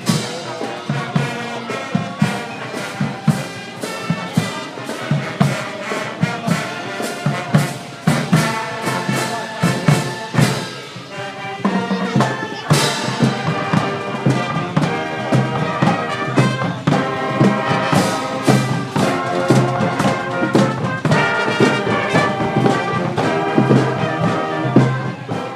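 Marching band playing a march: brass with sousaphones over a steady bass-drum beat. There is a brief lull just before a loud crash about halfway through, then the tune carries on.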